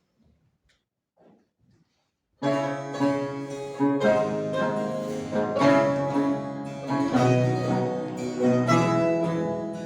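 Near silence, then about two and a half seconds in a mandolin ensemble starts playing: plucked strings sounding chords and a melody.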